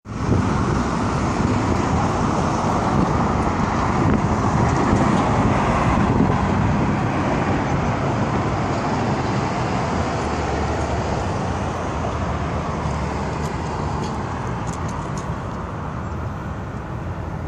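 Street traffic with a car's engine running loud, strongest a few seconds in, then slowly fading away.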